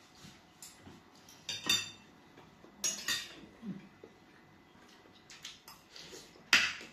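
Spoons and forks clinking and scraping against plates in short, scattered bursts, the loudest near the end.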